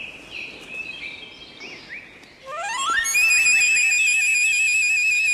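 Faint bird chirps, then about halfway in a bamboo flute starts: a quick rising run of notes into a long high held note with a fast warble.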